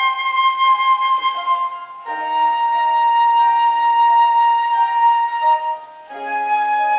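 Instrumental music in held chords with a flute-like tone. The chord changes about two seconds in and again about six seconds in.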